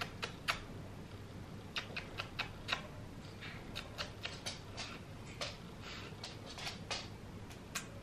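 Person kissing a pet cockatiel on the beak: a string of small, sharp kissing smacks, two or three a second, with a pause of about a second near the start.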